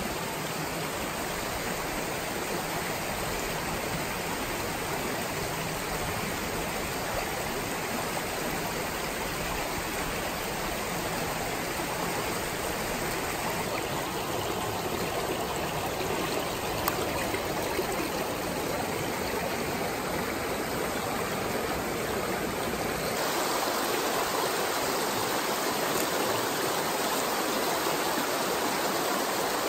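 Small rocky mountain creek rushing and splashing over stones and a little cascade: a steady water noise. About two-thirds of the way through it changes suddenly to a slightly louder, brighter rush of a riffled stretch.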